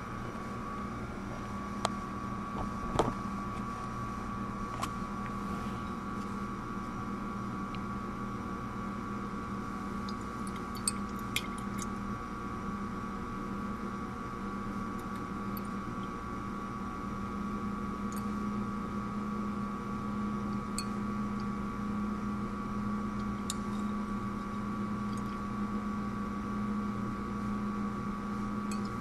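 A steady mechanical hum with a low drone and a higher tone, with a few short, sharp clicks about two to three seconds in and again around eleven seconds.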